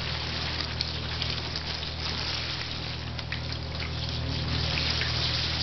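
Handheld shower head spraying water steadily onto a wet cat's fur, with small splashes and drips, over a low steady hum.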